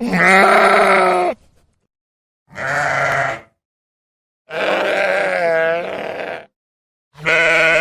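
Sheep bleating: four separate bleats with short silences between them, the third one long and quavering.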